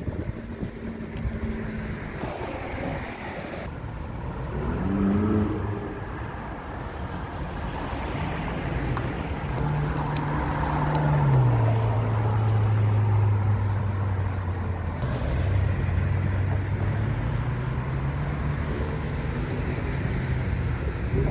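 Ferrari 488's twin-turbo V8 driving past at city speed, its steady engine note loudest as the car goes by and stepping down in pitch just after. The rush of other passing traffic runs underneath.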